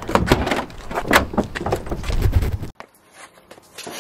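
Car keys jangling and a run of clicks and clunks at a car door as it is unlocked and opened, over a low rumble. The sound cuts off suddenly about three quarters of the way through.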